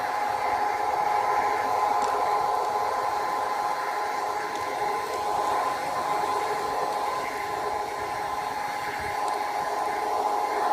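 Garden-scale model train running along brass track, heard from a camera riding on it: the locomotive's electric motor and gearing give a steady whine over the rattle of wheels on the rails.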